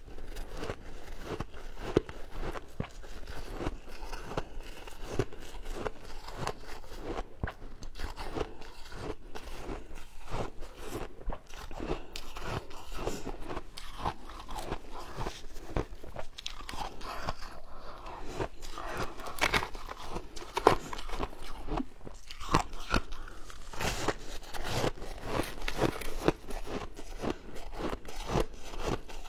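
Crunching and chewing of colourful shaved ice, dense crackling bites one after another, with sharper, louder crunches in the second half.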